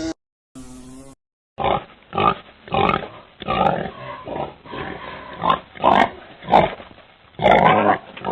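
An animal making a run of short, rough, pig-like grunts, about a dozen in six seconds at an uneven pace, after a brief pitched call about a second in.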